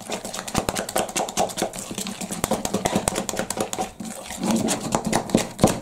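A utensil beating thick cornmeal corn-dog batter in a plastic mixing bowl: quick, rapid clicking and scraping strokes against the bowl.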